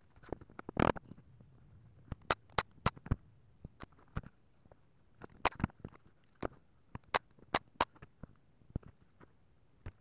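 Pine boards being handled and set down on a wooden workbench: irregular sharp clacks and knocks, with a heavier knock about a second in.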